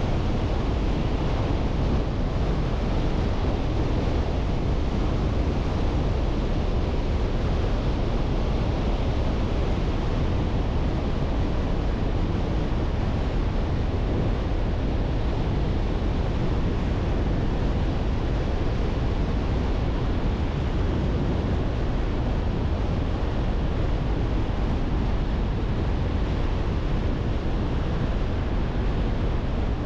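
Steady road noise of a car on the move: tyre rumble and wind, holding an even level.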